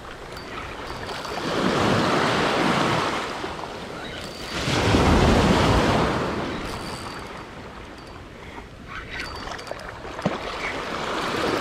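Small waves washing in over the shallows, swelling up twice, about two seconds in and again about five seconds in.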